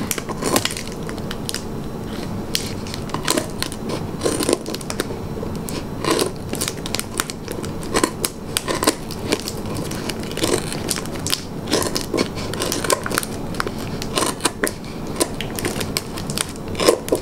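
Scissors snipping through tape and thin clear plastic where a plastic cup is taped onto a plant pot, with the plastic crackling as it is handled. The snips and crackles come in an irregular run, several a second.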